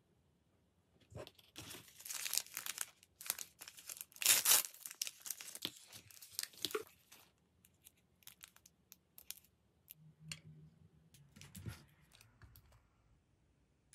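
Thin plastic blind-bag wrapper being torn open and crinkled by hand, loudest in the first half. After that come a few scattered light clicks and rustles as small plastic toy pieces are handled.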